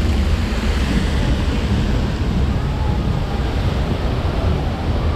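Rushing, churning water around a river-rapids ride raft, with wind buffeting the microphone: a loud, steady rush.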